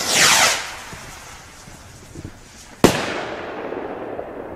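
A Nico firework rocket launching with a loud whoosh that falls in pitch, then bursting just under three seconds later with one sharp bang whose echo fades slowly.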